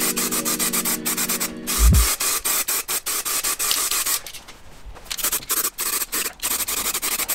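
Aerosol can of primer spraying in a rapid run of short hissing spritzes, several a second, with a brief lull partway through.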